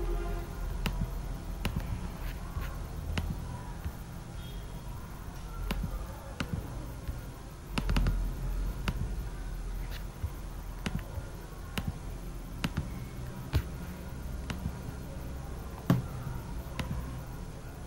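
Computer mouse clicking, short sharp clicks at an irregular pace of roughly one a second, over a low steady rumble of room noise.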